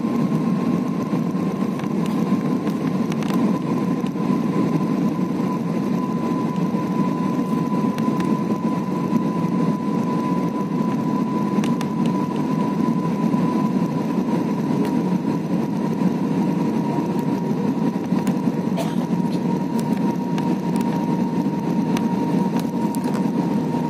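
Cabin noise of a jet airliner in flight: a steady rumble of engines and airflow with a steady whine on top that drifts slightly lower in pitch.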